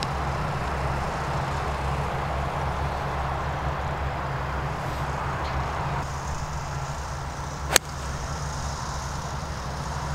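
A golf club strikes the ball off the tee with one sharp crack about eight seconds in, over a steady low hum.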